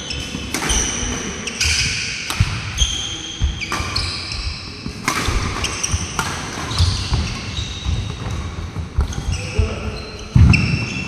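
A fast doubles badminton rally: rackets striking a nylon shuttlecock again and again, court shoes squeaking in short high chirps on a wooden floor, and footsteps thudding, all echoing in a large hall. A heavy thud near the end is the loudest sound.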